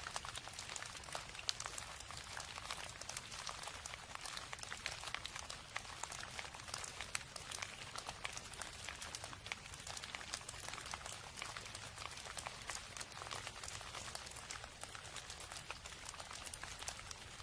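Steady rain falling, a dense patter of many small drop impacts over an even hiss.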